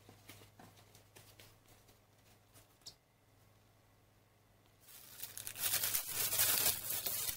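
Faint pats and taps of hands working soft bread dough, then about five seconds in a thin plastic bag crinkling loudly as it is spread over the dough.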